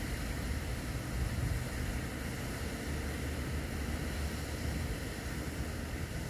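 Steady low rumble and hiss of background noise, with no distinct duck or duckling calls.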